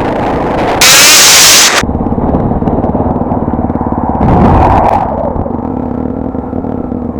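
Honda Tornado 250 single-cylinder four-stroke motorcycle engine running under way, with a loud rushing hiss about a second in that lasts about a second, and a shorter surge in the engine note around the middle.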